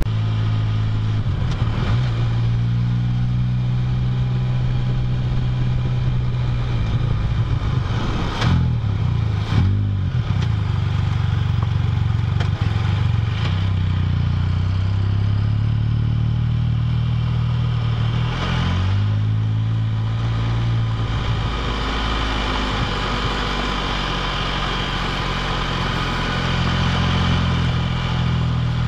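Can-Am Spyder three-wheeled motorcycle's engine running at low riding speed, heard from the rider's seat. The engine note swoops and shifts around eight to ten seconds in and again around eighteen seconds in as the revs change.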